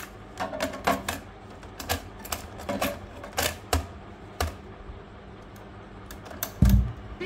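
Irregular mechanical clicks and knocks from handling a cassette deck and its controls, over a steady low hum from the player, with a heavier low thump near the end.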